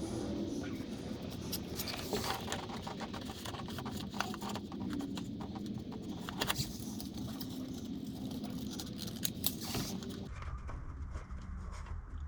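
Handling noises of a patch template being adjusted and fitted against the wheel arch: a scattered run of small clicks, taps and rustles. A steady background hiss stops about ten seconds in.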